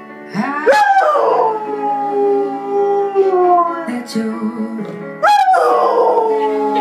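Alaskan malamute howling along to piano music: two long howls, one starting about half a second in and another about five seconds in. Each rises quickly in pitch, slides down and then holds a long note.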